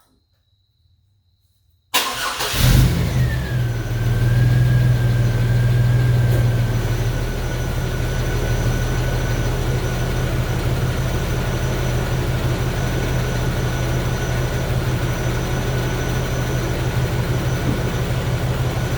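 Near silence for about two seconds, then a 1999 Chevy Blazer's 4.3-litre Vortec V6 fires up almost at once, runs fast for a few seconds and settles into a steady idle, with a faint steady whine alongside. It is the engine's first start after its distributor and intake manifold were replaced.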